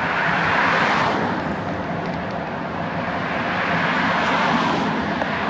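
Road traffic: cars passing, their tyre and engine noise swelling about a second in and again near the end.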